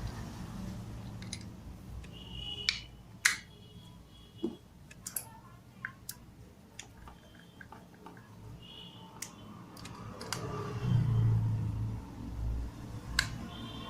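Scattered sharp clicks and taps of small parts being handled as an immersion heater's terminal end is closed up after rewiring, with a few brief squeaks. A low rumble swells up about eleven seconds in.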